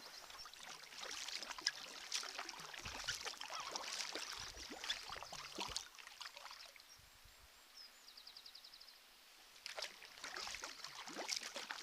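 Sea kayak paddle strokes in the water, splashing and dripping, with a lull of a few seconds in the middle before the strokes pick up again.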